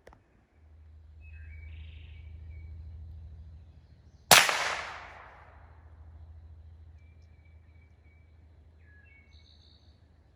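A single gunshot about four seconds in, trailing off over a second or so. Short bird chirps come before and after it.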